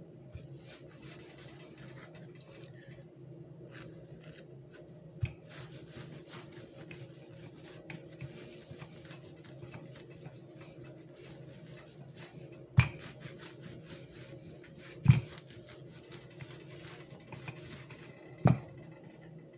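Wooden rolling pin rolling out bread dough on a floured cloth, a soft steady rubbing over a low hum. Several sharp knocks break in, the loudest three in the second half.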